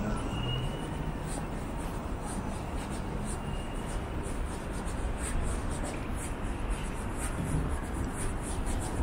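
City street ambience: a steady low rumble of traffic, with a light high ticking about twice a second.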